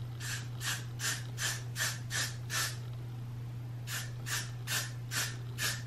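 Got2b glue spray being sprayed onto a wig cap in short repeated squirts, about two or three a second, in two runs with a pause of about a second between them. A steady low hum runs underneath.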